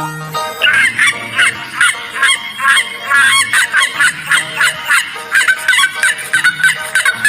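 Domestic fowl calling in a flock: a dense run of short, harsh calls, about two or three a second, starting about half a second in.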